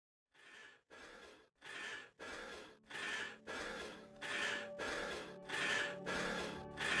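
Rapid, rhythmic breathing, about one and a half breaths a second, growing steadily louder: paced breathing for a breathing exercise. Sustained music tones fade in underneath from about three seconds in.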